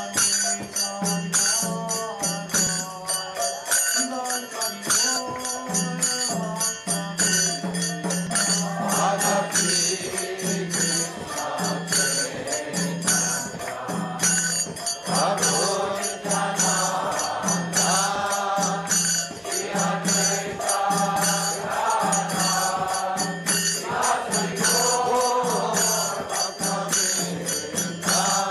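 Devotional kirtan chanting: a man's voice sings a mantra over kartal hand cymbals ringing in a quick, steady rhythm, with a low tone stepping between two notes beneath.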